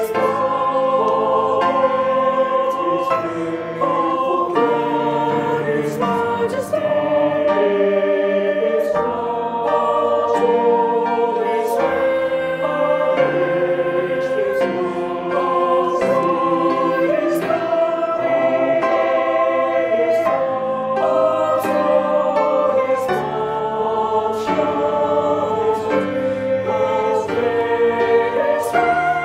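A church choir singing a hymn, several voices in harmony with the chords changing every second or so.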